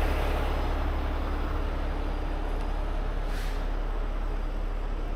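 Heavy rotator tow truck's diesel engine running steadily, a deep even hum, as it holds a box truck up on its boom. There is a short, faint hiss about three and a half seconds in.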